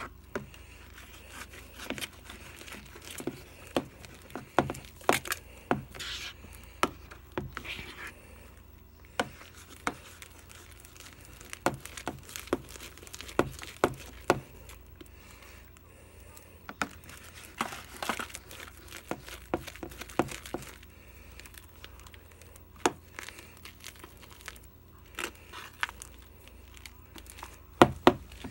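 Hands kneading and stretching fluffy slime in a bowl: irregular wet squelches, pops and crackles, the loudest near the end. The slime is being worked as more contact lens solution activator is mixed in so that it comes together.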